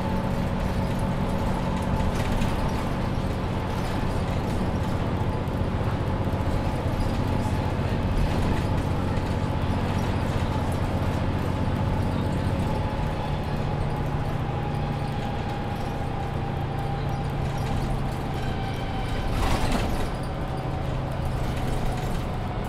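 Mercedes-Benz Citaro C2 Ü Hybrid city bus with Voith automatic gearbox driving, heard on board: a steady low engine drone with a whining tone that sinks slightly in pitch in the second half. A short knock comes near the end.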